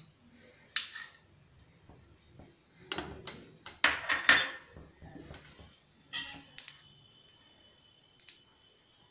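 A metal spoon clinking and scraping as a spoonful of solid ghee is scooped and dropped into an empty aluminium kadhai. The sounds are short scattered clicks, busiest and loudest about three to four and a half seconds in.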